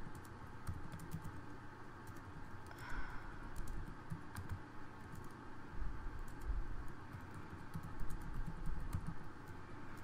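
Irregular clicking of typing on a computer keyboard, with a few soft low thumps among the keystrokes.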